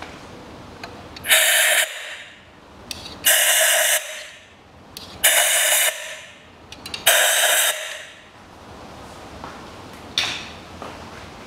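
Compressed-air blow gun fired into the spark plug wells: four sharp blasts of hissing air, each under a second and about two seconds apart, with a shorter hiss near the end. The air clears dirt from around the plugs before they are unscrewed, so none falls into the cylinders.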